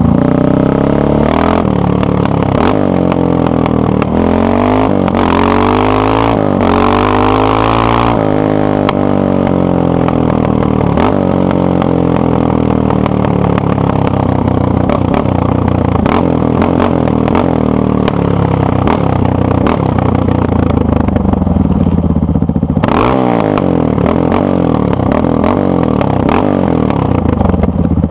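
Honda XR650R's single-cylinder four-stroke engine on its stock exhaust, revved in quick blips that rise and fall several times. It then settles to a steadier, lower speed, with another sharp rev near the end.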